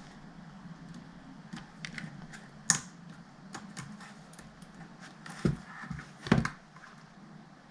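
Small plastic laptop keycaps being clicked onto the scissor mechanisms of a keyboard: scattered light clicks and taps, with three sharper snaps about three, five and a half and six and a half seconds in, over a steady low hum.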